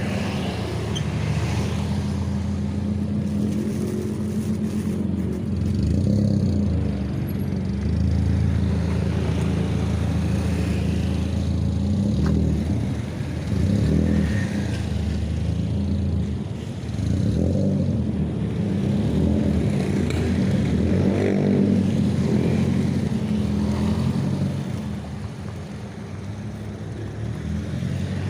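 Motor vehicle engine running steadily, its pitch rising and falling with changing engine speed.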